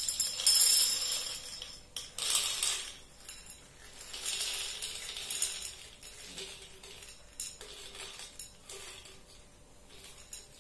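Spirulina tablets poured from their bottle onto a plate, clattering and clinking in several pours over the first five seconds or so, the first being the loudest. After that only a few scattered clicks follow, as the last tablets drop and settle.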